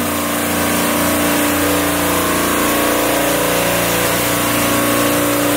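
Supermarket refrigeration compressor rack running: a steady, loud machine drone with a constant hum.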